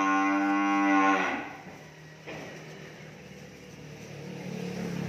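Cattle mooing: a long, steady, loud moo that ends about a second in, then another low moo building near the end.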